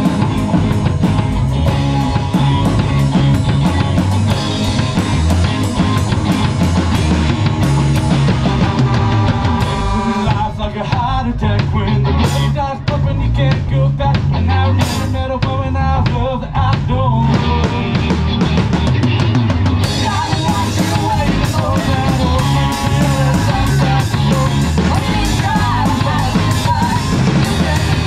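Live rock band playing: drum kit up close, with guitars and bass. The drums thin out to occasional cymbal crashes from about ten seconds in, and the full beat comes back about twenty seconds in.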